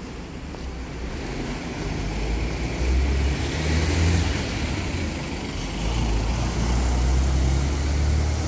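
Hyundai CNG city bus driving past close by and moving off, its engine running low and heavy. The engine gets louder as the bus comes alongside about three to four seconds in and stays strong as it pulls away.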